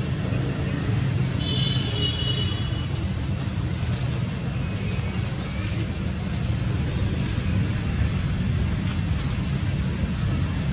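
Steady low rumble of outdoor background noise, with a brief high-pitched call about one and a half seconds in.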